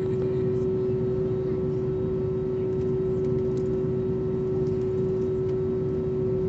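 Cabin noise of an Airbus A320neo taxiing, heard beside the wing: its Pratt & Whitney PW1127G geared turbofans run at low power as a steady hum with one clear, unchanging mid-pitched tone over a low rumble.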